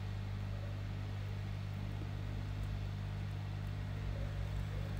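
Hot air rework station running: a steady rush of air over a strong low hum.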